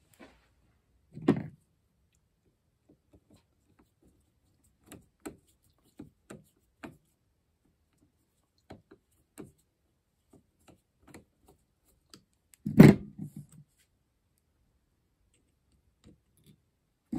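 Scattered small metal clicks and taps of Solex 28 PICT-1 carburetor parts and a screwdriver being handled during reassembly, with two louder knocks, one about a second in and a louder one about two-thirds of the way through.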